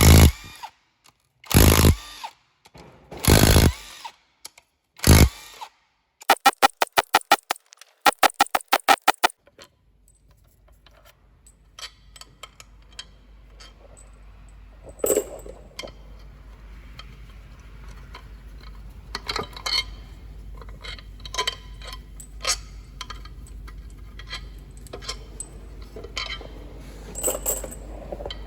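Four short bursts from a power tool, then a fast even rattling run, as bolts are undone on a truck engine. After that a low steady hum with scattered clinks of metal tools and parts.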